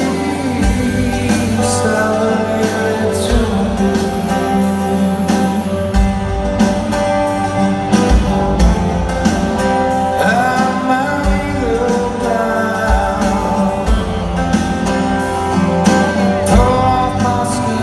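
Rock band playing live: electric guitars, bass guitar and drums under a male lead vocal, heard from the crowd in an arena.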